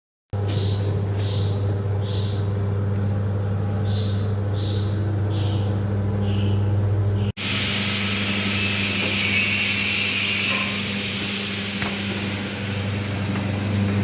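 Breadcrumb drying machine running with a steady electric motor hum. About seven seconds in the sound cuts and resumes with a louder even hiss over the same hum.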